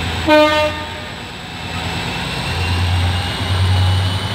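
Diesel passenger train pulling away from a stop: a brief horn toot just after the start, then the diesel engine's steady low drone growing louder as it gathers speed.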